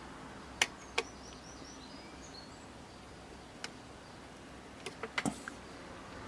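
A few sharp clicks and taps over a low steady hiss: two near the start, one in the middle and a quick cluster near the end. A faint run of short, high chirps comes about a second in.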